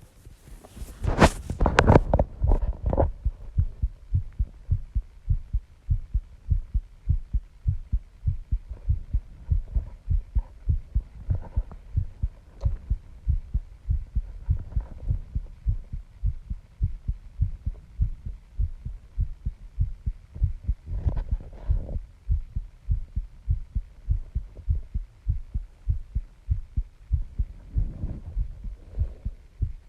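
A person's heart pounding: a steady, even rhythm of low thumps. In the first three seconds louder knocks and rustles sit over the beat, and faint rustles come in now and then after that.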